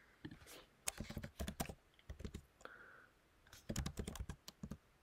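Typing on a computer keyboard: faint key clicks in short runs, one about a second in and another near the end.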